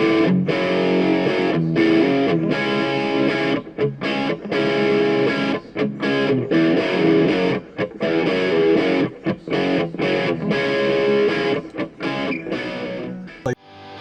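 Music led by a distorted electric guitar, with a steady rhythm; near the end it breaks off abruptly into a quieter, evenly pulsing passage.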